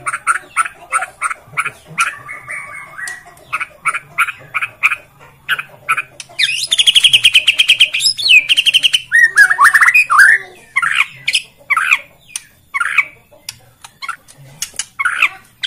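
White-rumped shama (murai batu, Borneo type) singing loudly: a run of short, sharp notes, then a fast rattling trill for about two and a half seconds midway, followed by bending whistled phrases and more sharp notes.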